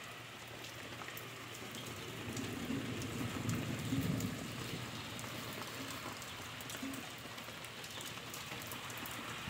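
Steady rain falling, with scattered sharp drips. A faint low rumble swells and fades about two to four seconds in.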